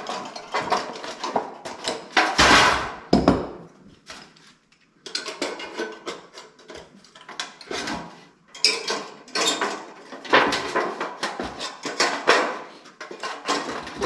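Floor boards being handled and fitted: a string of knocks, clatters and scrapes, with two heavy thumps a little over two and three seconds in and a short lull around four seconds.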